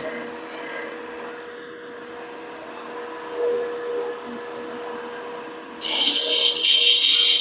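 Wood lathe running with a steady hum, and about six seconds in a tool starts scraping loudly against the spinning walnut blank as it is turned to shape.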